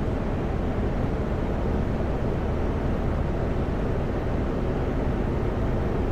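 Steady drone of a Kenworth W900L semi-truck's diesel engine and road noise, heard from inside the cab while driving on the highway.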